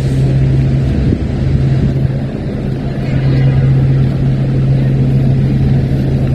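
Traffic noise from stopped city buses and cars: a steady low engine hum from idling diesel buses.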